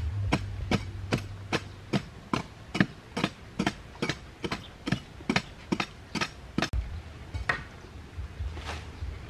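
Bamboo sticks jabbing into dry, sandy soil to dig holes: sharp, regular strikes about two and a half a second. About two-thirds of the way through the strikes stop, and softer scraping follows as loose dirt is scooped out by hand.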